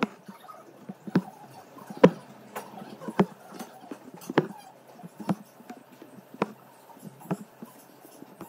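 Embroidery needle piercing thin canvas stretched drum-tight in an embroidery hoop, a sharp tap about once a second at an uneven pace, as single strands of floss are stitched.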